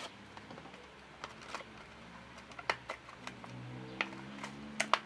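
Plastic blister pack and card crackling and clicking as hands pry open a die-cast toy car package: irregular sharp crinkles, a few louder snaps about four and five seconds in.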